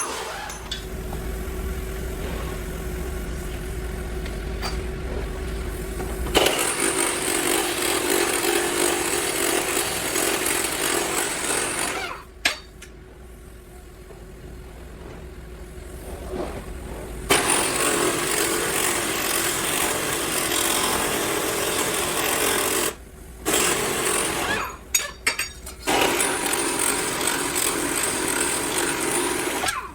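Power tools running in loud noisy stretches of several seconds each, starting and stopping abruptly, with short quieter gaps between.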